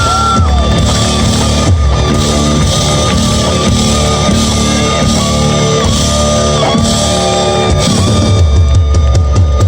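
Live rock band playing loud: a held lead melody line with brief pitch bends rides over drums and bass.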